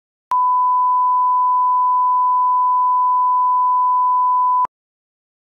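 Broadcast bars-and-tone line-up test tone: one steady pure beep of about four seconds that starts and stops abruptly with a click at each end.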